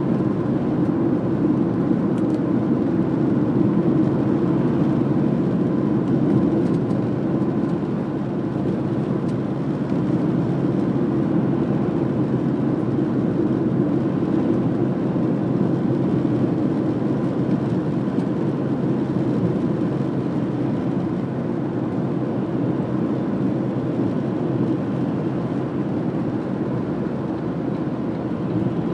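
Steady low rumble of a car driving along city streets, with road and engine noise heard from on board the car.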